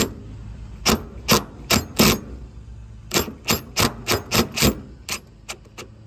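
Cordless brushless DeWalt impact driver running a #12 screw through a steel bracket into the windshield frame, in about a dozen short hammering bursts with brief pauses between them, which stop near the end.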